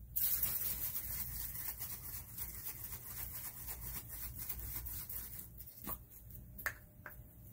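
Aerosol can of PB Blaster penetrating oil spraying in one long hiss of about five seconds onto frozen sink screws, followed by a few light clicks.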